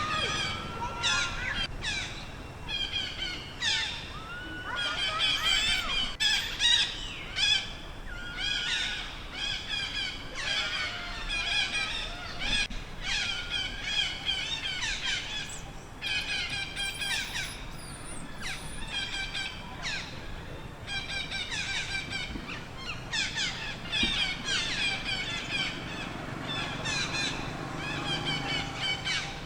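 Baby monkey crying: short, high-pitched cries repeated in rapid runs with brief pauses.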